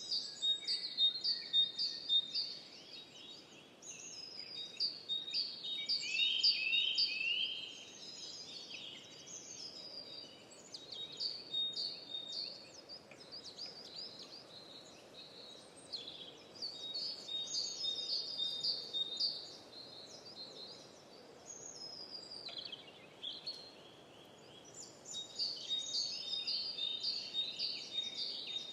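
Songbirds singing in phrases of rapid, high chirping notes, several phrases a few seconds long with short pauses between them, over a faint steady background hiss.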